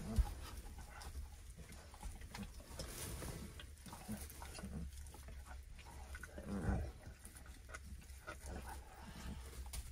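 Three-week-old Great Pyrenees puppies play-fighting, with a few faint, short growls and grunts. The clearest comes about two-thirds of the way through.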